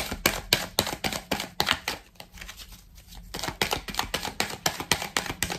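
A deck of 77 d'Alyass Ké oracle cards being shuffled by hand: a quick run of light card clicks and flicks that thins out for about a second in the middle, then picks up again.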